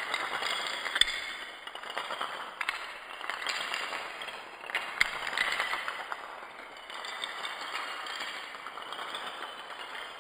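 Rows of coloured dominoes toppling in a chain on a hard stone floor: a continuous rapid clatter of small clicks as the pieces knock into each other and land. It is busiest in the first half and eases off somewhat over the last few seconds.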